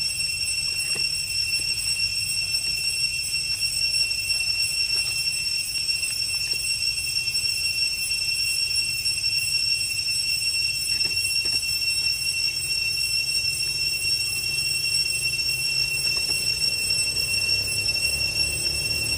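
Cicadas droning: one steady, high-pitched tone that never lets up, over a low rumble.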